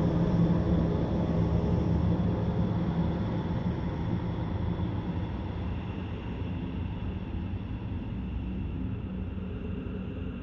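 Synthesized ambient drone: a low, rumbling electronic texture with faint steady high tones above it, slowly growing quieter.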